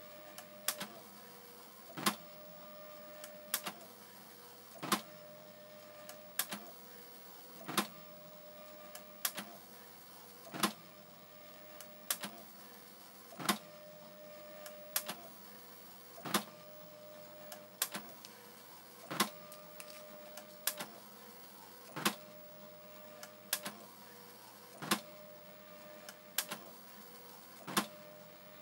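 SANYO MPT-C10 printer printing a graphic line by line. It goes in an even cycle about every one and a half seconds: a sharp click, then a short steady whine as the print head travels across the line.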